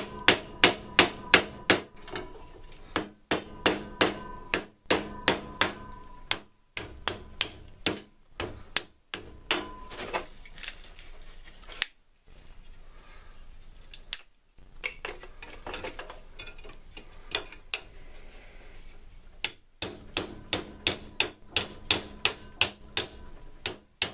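Hammer blows in quick runs of about four or five a second, each with a short metallic ring, broken by brief pauses: hammering to break the stuck wooden handles off an old draw knife.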